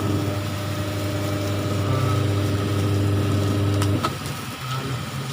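Singer washing machine's spin motor running with a steady hum on the spin cycle, driven by a universal replacement control board, cutting off with a click about four seconds in.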